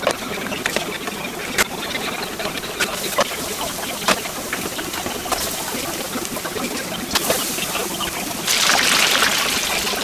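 Hot oil sizzling and bubbling steadily in a deep-frying pot, with occasional sharp clicks. The sizzle surges louder for about a second, about eight and a half seconds in.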